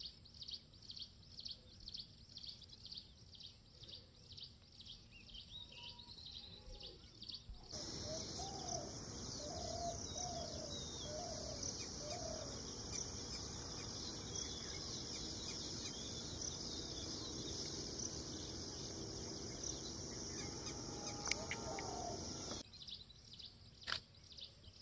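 Outdoor forest ambience with birds calling. First comes a quick, regular run of high chirps. After a sudden cut the background turns louder and hissier, and a short series of five lower calls follows.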